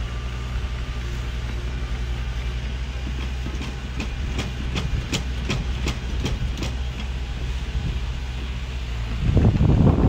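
Bulldozer's diesel engine running steadily, with a run of about ten sharp metallic clanks in the middle, about three a second, from its crawler tracks. A burst of wind noise on the microphone near the end.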